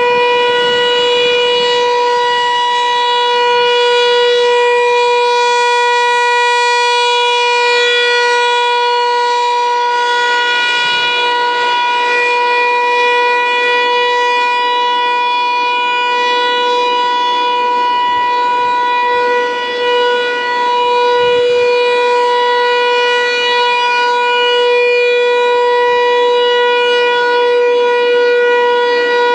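American Signal T-135 outdoor warning siren sounding a steady alert tone for a test, holding one loud, unchanging pitch with a rich stack of overtones.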